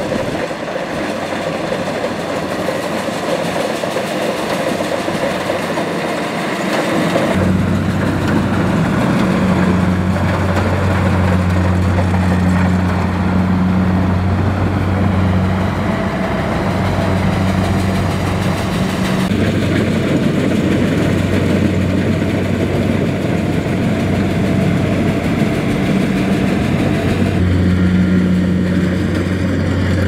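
Kubota rice combine harvester running in the field as it cuts rice, a steady engine and machinery drone. About seven seconds in a deep steady hum comes in and holds, dipping briefly now and then.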